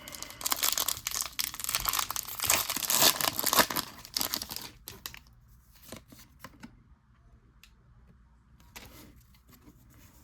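Foil Pokémon booster pack wrapper being torn open and crinkled for about four and a half seconds, then quieter handling with a few soft clicks and a short crinkle near the end.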